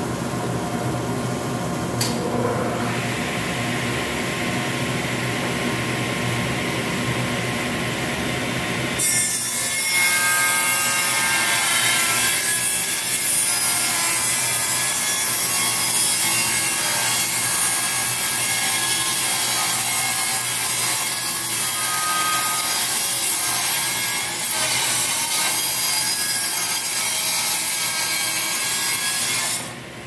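Table saw running, then ripping a board guided by a straight-edge jig. The cut starts suddenly about a third of the way in, much louder and brighter than the idling saw, holds steady with a brief dip, and stops just before the end as the offcut comes free.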